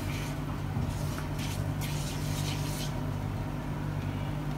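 Silicone spatula stirring flour frying in oil in a nonstick pan, a roux being browned, with a few short scraping strokes about a second in and again around two to three seconds in, over a steady low hum.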